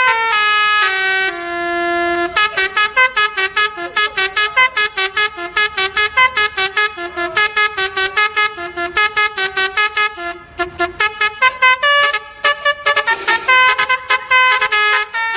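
Basuri 'telolet' bus air horn playing a melody: a few held notes stepping down in pitch, then a fast run of short horn notes at about four a second.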